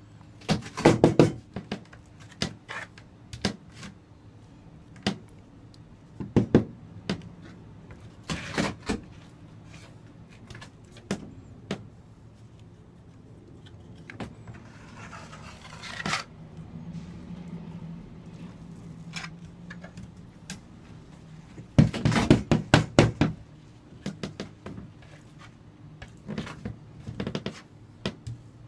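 Notched steel trowel scraping and knocking across an OSB countertop as it spreads vinyl tile adhesive. Repeated short strokes, with quick runs of strokes about a second in and again past twenty seconds in, and a longer drawn-out scrape in the middle.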